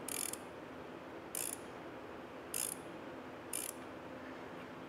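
Ratchet wrench clicking in four short strokes about a second apart, tightening a hold-down clamp nut.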